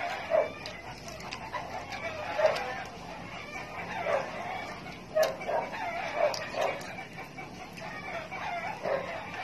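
Chickens clucking in short repeated calls, mixed with the soft clicks of someone chewing close to the microphone.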